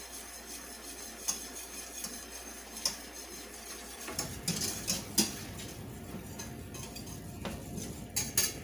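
Wire whisk stirring a pan sauce in a stainless steel saucepan, with scattered metallic clinks and scrapes as it strikes the pan's side and bottom.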